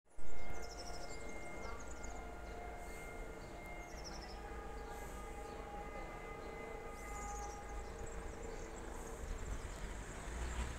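Railway station ambience as a train approaches in the distance: a steady low rumble with several steady hum tones. Birds chirp now and then, and there is a brief loud pop at the very start.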